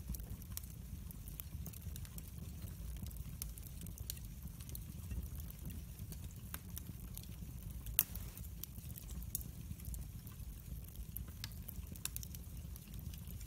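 Split firewood logs burning in a fireplace, crackling with scattered small snaps and pops and one sharper pop about eight seconds in, over a low steady rumble.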